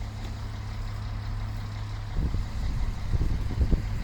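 A steady low engine hum, with a few low thumps about two seconds in and again near the end.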